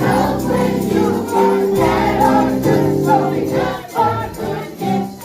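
Choir singing gospel Christmas music with accompaniment.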